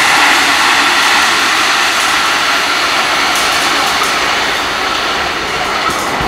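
JR Central 313 series electric train running past the platform: a loud, steady rush of wheel and air noise that slowly fades.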